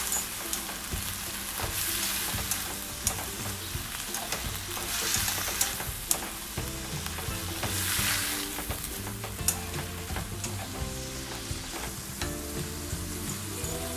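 Shrimp, squid, beef and bell peppers sizzling in a nonstick wok as they are stir-fried with chopsticks, with scattered clicks of the chopsticks against the pan.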